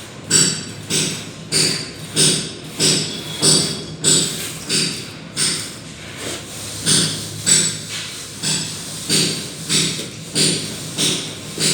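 Steady, rhythmic scraping strokes of a plastering tool worked over a wall, about one and a half to two strokes a second, briefly easing off in the middle.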